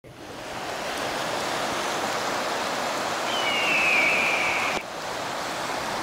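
McKenzie River water rushing in a steady hiss that fades in at the start. About three seconds in, a single high bird cry falls in pitch and lasts just over a second.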